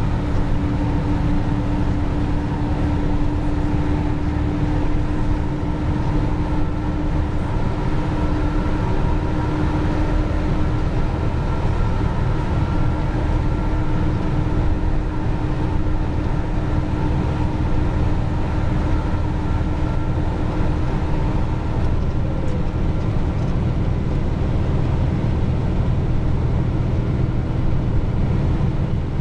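Heavy dump truck driving steadily on the highway, heard from inside the cab: a constant low engine and road rumble with a steady humming tone.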